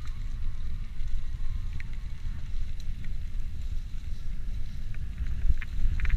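Wind buffeting the camera microphone as an e-mountain bike rides a singletrail, with scattered clicks and rattles from the tyres and the bike. The clicks come more often near the end.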